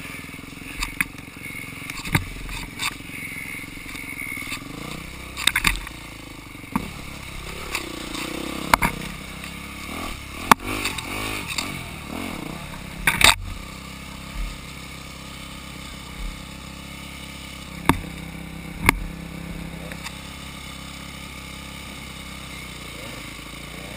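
Dirt bike engines: one idles steadily close by while another is revved up and down as it climbs a rocky creek bed, with scattered sharp knocks and clatter.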